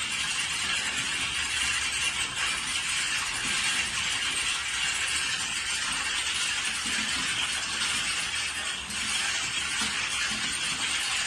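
Many computer keyboards being typed on at once: a dense, continuous clatter of keystrokes in which no single stroke stands out.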